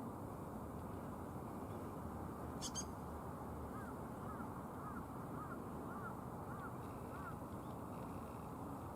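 A run of about eight short, arching bird calls, roughly two a second, over a steady low rushing background, with one brief sharp high call shortly before them.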